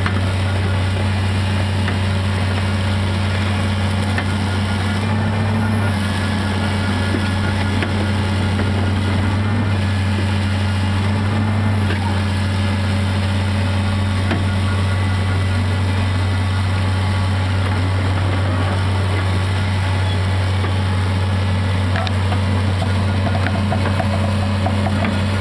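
1995 Prentice CRX625 crawler grapple logger's diesel engine running steadily at idle, a constant low drone.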